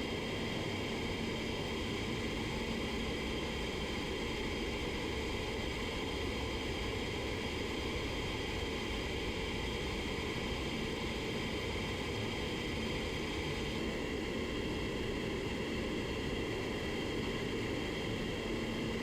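Steady rush of air and fan hum from a paint booth's ventilation, unchanging apart from a slight shift in its hiss near the end.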